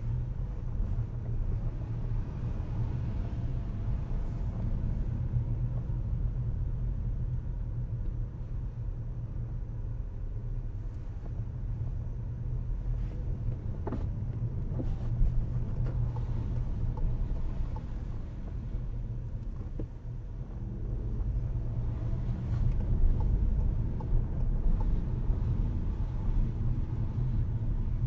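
Low, steady rumble of a car driving on city streets, heard from inside the cabin, with a couple of brief knocks about halfway through.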